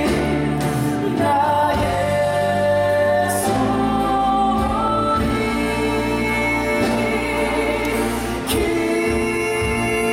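Stage musical number: long held sung notes over sustained orchestral accompaniment, the melody stepping up in pitch about four and a half seconds in.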